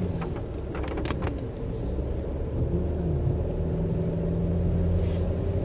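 Car driving, heard from inside the cabin: a steady low engine drone and road rumble, with a few short clicks about a second in.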